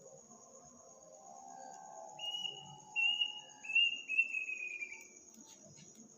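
A night bird giving a series of four loud whistled notes, the last ones sliding down in pitch with a slight warble, over a steady high chirring of crickets or other night insects.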